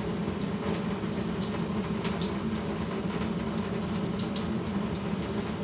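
Tap water running steadily from a faucet into a sink.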